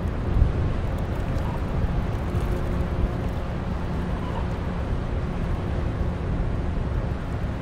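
Steady low rumble of a passing cargo ship's engine, with a faint constant hum above it.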